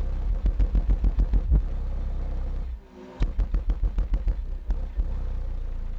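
Skar Audio VXF-12 D4 12-inch subwoofer playing a loud bass demo track on a Taramps HD3000 amplifier, pushed to around 800 watts: deep bass with fast rhythmic pulses, a brief dip about three seconds in, then pulsing again before a steady stretch.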